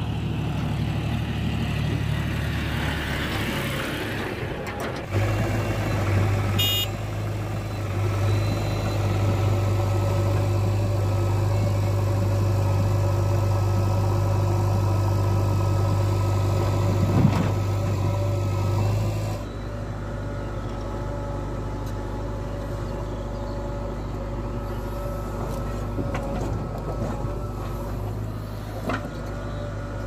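Diesel engines running steadily: first the John Deere tractor drives up, then the JCB 3DX backhoe loader digs soil and loads it into the tractor's trolley. The engine tone changes abruptly about five seconds in and again about two-thirds of the way through.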